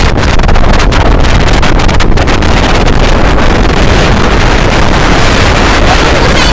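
Loud wind buffeting on the microphone while riding at speed in an open vehicle, over a steady rumble of engine and tyres on the wet road.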